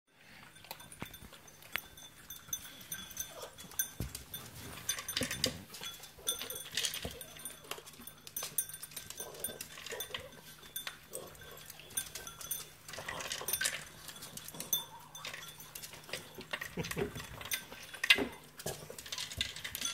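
Yorkshire terrier eating dry kibble from a plastic slow-feeder bowl: irregular clicks and rattles of kibble and bowl throughout, with a louder knock near the end as the bowl is pushed.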